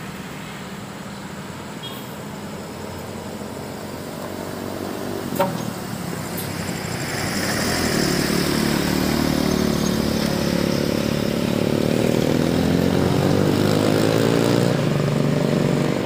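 Coach bus diesel engine running as the bus pulls past close by, getting louder from about seven seconds in and staying loud to the end. There is a single sharp click about five seconds in.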